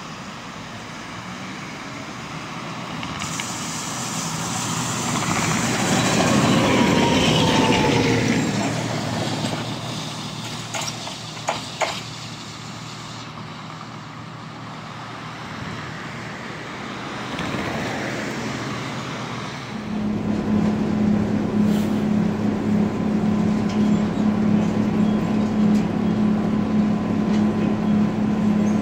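Tatra T4D tram running. The noise swells and falls away again with a faint falling whine, and sharp clicks come a few seconds later. About twenty seconds in, a steady low hum sets in abruptly.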